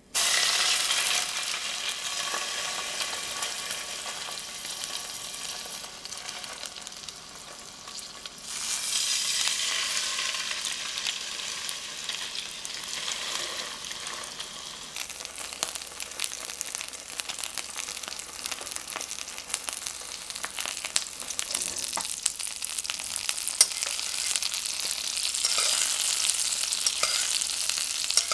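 Salmon fillets sizzling in hot olive oil in a frying pan. A sudden burst of sizzling as the first fillet is laid in skin side down, and another about a third of the way through as the second goes in; each settles into a steady crackling sizzle. Near the end the sizzle grows louder again as the fish is basted in melted butter with a spoon.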